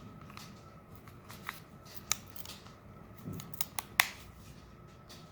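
A Leatherman Signal multi-tool being slid into a stiff leather belt sheath, with rustling and a handful of sharp clicks, the loudest about four seconds in.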